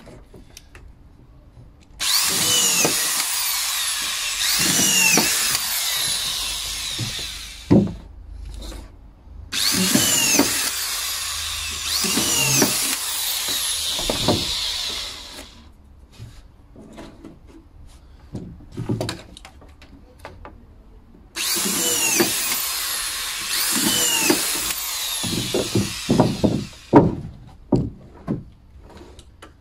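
Corded auto-feed collated screw gun driving 65 mm deck screws into softwood decking boards, in three runs of several seconds each with the motor's pitch swooping as screw after screw drives home. Knocks and clicks come between the runs.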